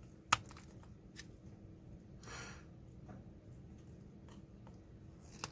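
A single sharp snip of small flush side cutters cutting through a plastic wire holder, about a third of a second in. A few faint clicks of plastic parts being handled follow.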